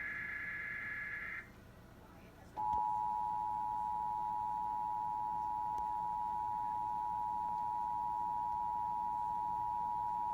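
Emergency Alert System tones: the tail of a SAME digital header burst, a warbling data screech that stops about a second and a half in, then after a short gap the EAS two-tone attention signal held steady for about eight seconds. This opens a Required Monthly Test relayed over broadcast TV.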